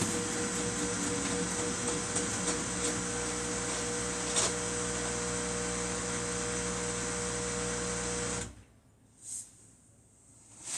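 Samsung washing machine running with a steady motor whine and hum, with a light knock about four seconds in; the sound cuts off suddenly about eight and a half seconds in.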